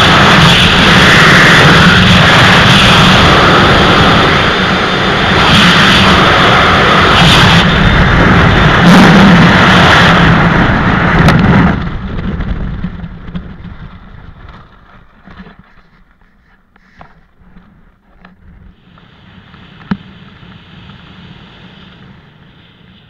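Freefall wind rushing over the microphone, loud and steady, dying away about halfway through as the parachute opens and the fall slows. Then much quieter canopy flight with faint rustles and clicks.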